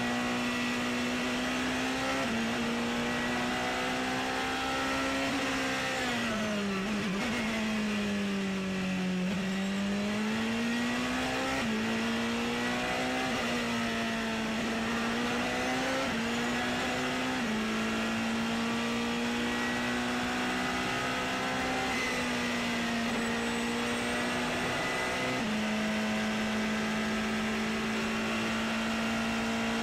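Porsche 919 Hybrid's 2.0-litre turbocharged V4 engine heard onboard at racing speed: a steady engine note that steps in pitch at gear changes and dips then climbs again through a slower corner around the middle. A steady high whine runs over it throughout.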